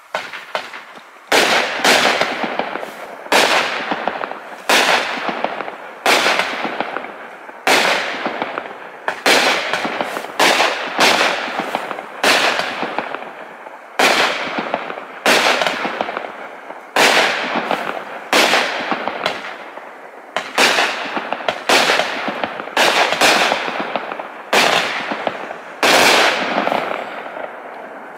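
Fox Fireworks Premium Willow 25-shot consumer fireworks cake firing its shots in sequence: a sharp bang roughly every second, each fading over about a second before the next, for about two dozen shots before it dies away at the end.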